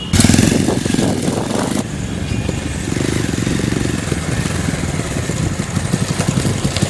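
Motorcycle engine running as the bike rides up, loudest over the first two seconds and then steady. Its exhaust runs through a home-built silencer fitted with a catalytic filter.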